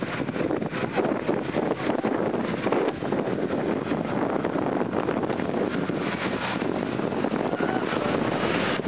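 Land Rover Defender's engine running as it wades through a deep ford, water washing around the body, with wind buffeting the microphone.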